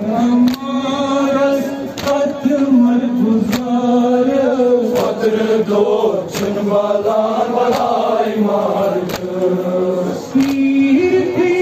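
Men chanting a Kashmiri noha, a Shia mourning lament, in long held lines, led by a reciter on a microphone. A sharp slap comes about every second and a half from the mourners' rhythmic chest-beating (matam).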